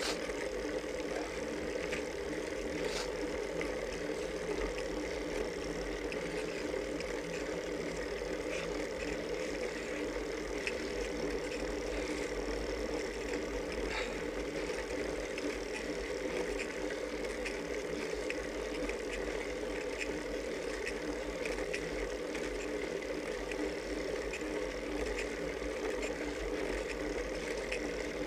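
Steady riding noise from a road bike climbing slowly, picked up by a camera mounted on the bike: a constant hum of tyres and drivetrain with scattered light ticks and rattles.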